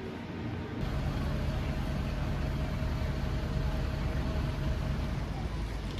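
Steady low hum of an idling motor-vehicle engine, starting abruptly about a second in, with a faint higher tone over it until near the end.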